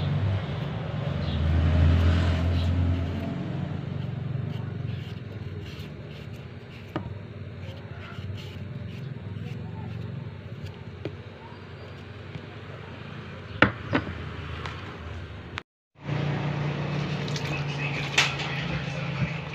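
A kitchen knife peeling a carrot, with scattered small clicks, over a low background rumble that is loudest about two seconds in. After a brief dropout near the end, water is poured from a plastic dipper over vegetables in a bowl.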